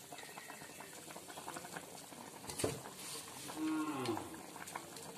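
A taro-stem and roselle-leaf curry bubbling in an aluminium pan on a gas stove, with a ladle knocking once against the pan about halfway through. A short, low call that falls in pitch is heard a little later.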